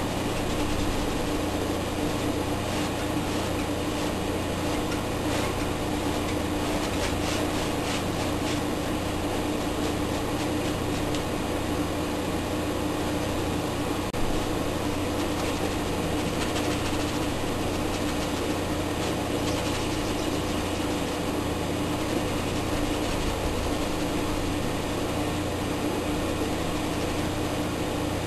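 Steady mechanical hum with hiss and a constant low tone, unchanging throughout; a single short knock about fourteen seconds in.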